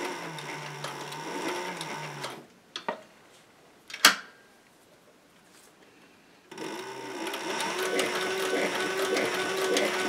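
Industrial sewing machine stitching through suede and a synthetic sherpa wool lining. It runs for about two and a half seconds and stops. Two sharp clicks follow, the louder about four seconds in. It starts running again about six and a half seconds in.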